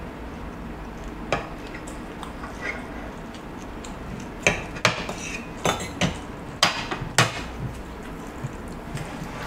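Metal fork and spoon clinking and scraping against a plate while scooping up rice. There is one sharp clink about a second in, then a quick run of six or seven clinks in the second half.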